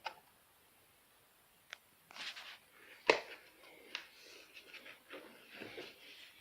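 Handling noises: a series of sharp clicks and knocks with short rustles between them, the loudest click about three seconds in.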